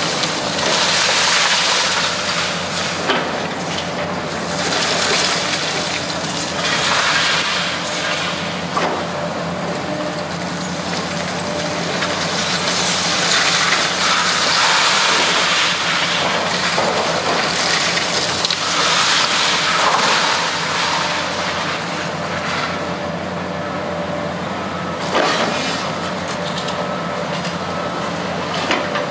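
Demolition excavator's hydraulic grab crushing the concrete of a high-rise apartment block, with rubble crashing down in repeated surges and a few sharp knocks, over the steady hum of the machine's engine.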